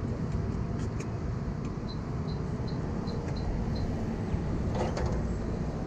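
A run of about seven short high beeps, unevenly spaced like button presses, from a digital tyre inflator as its target pressure is set. Under them is a steady low rumble of traffic.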